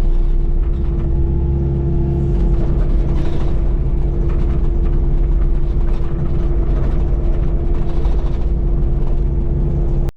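Kubota KX080 excavator's diesel engine running steadily under work, with a constant whine over the engine sound; it cuts off suddenly near the end.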